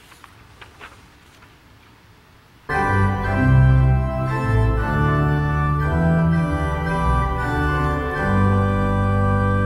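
A few faint clicks in a quiet room, then about two and a half seconds in an organ starts playing a hymn, sustained chords over a moving bass line.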